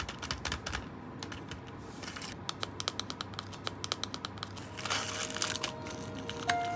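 Quick, irregular run of light clicks and taps, several a second, densest in the middle.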